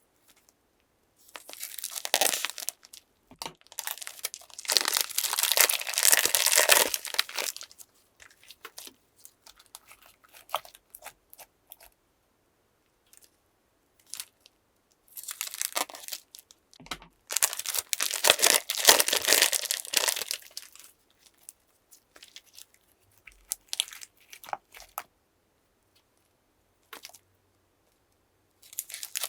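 Slime being squeezed and worked in plastic piping bags, crinkling and crackling in two long spells, with scattered small clicks and pops between them.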